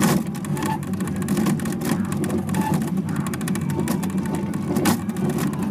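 Togo "Rally Kart" coin-operated battery car driving along, its electric drive motor and gearing running with a steady whirring rattle. A sharp knock comes at the start and another about five seconds in.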